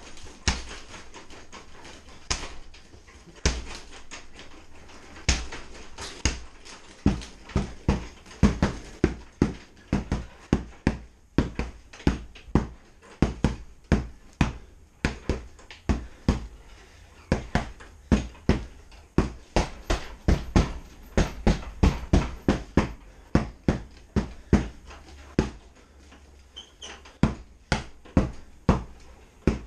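Heavy punching bag being struck again and again with a tomahawk: sharp thuds in quick runs of about two a second, with short pauses between runs.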